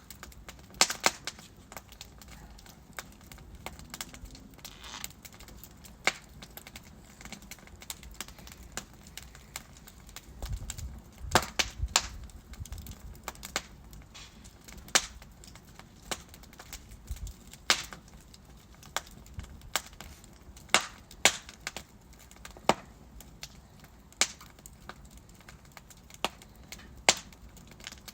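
Wood fire in a fireplace crackling: irregular sharp pops and snaps from burning logs over a faint steady hiss, a dozen or so louder cracks standing out, with a brief low rumble of flame about ten seconds in.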